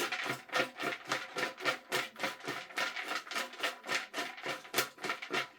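Raffle tickets being mixed for the drawing: a quick, even run of papery clicks and rustles, about seven a second.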